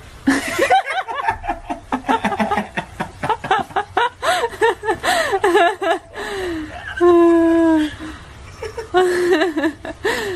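People laughing hard in quick repeated bursts, with one long held high cry about seven seconds in, then more laughter near the end.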